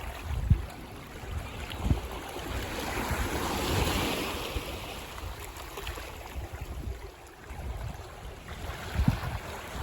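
Ocean waves washing onto a beach: a steady surf hiss that swells to a peak about four seconds in and then falls away. A few brief low thumps of wind buffeting the microphone come through, one near the start, one about two seconds in and one near the end.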